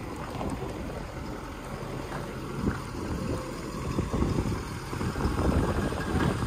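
Ford pickup truck running at low speed as it backs up close by, with wind buffeting the microphone.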